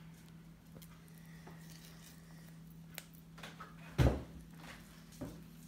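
Handling and peeling an avocado over a wooden chopping board: a few light clicks and knocks, with one duller thump about four seconds in, over a steady low hum.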